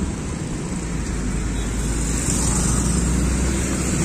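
Road traffic passing close by: the engines and tyres of cars, trucks and motorcycles, with a low engine rumble growing louder about a second and a half in as vehicles come past.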